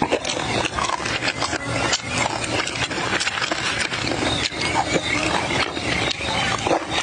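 A person chewing raw crab in spicy sour sauce with the mouth full: a steady run of wet smacking and crunching clicks.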